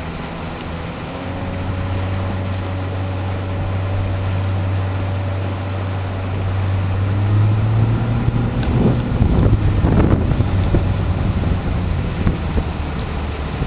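Wind buffeting the microphone over the steady drone of a motorboat engine, which rises a little in pitch about seven seconds in; a louder gust or splash of water follows around nine to ten seconds in.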